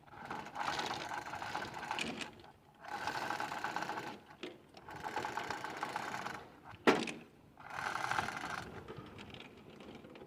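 A power impact wrench runs bolts on an excavator swing motor in four rattling bursts of one to two seconds each, with a sharp metallic knock just before the last burst.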